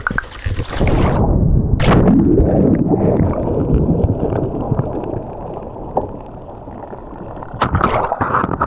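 A splash about a second in as people fall off a paddleboard into the sea. It is followed by muffled rushing and bubbling water heard through a camera that has gone under the surface. Sharper splashing comes back near the end.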